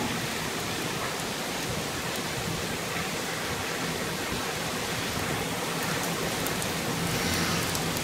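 Heavy thunderstorm downpour falling steadily, a dense, even hiss of rain.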